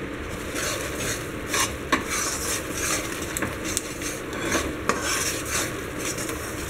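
Steel spoon stirring and scraping roasted gram flour (besan) and melon seeds in ghee around a kadai, in irregular strokes with clinks of the spoon on the pan. The hot ghee sizzles faintly underneath.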